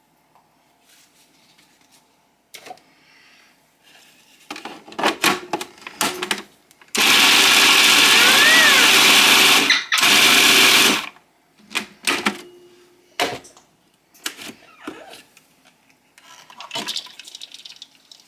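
Food processor chopping leafy greens and carrots: the motor runs for about three seconds, stops for a moment, then runs again for about another second. Hard knocks and clatter of the bowl and lid come before and after the run.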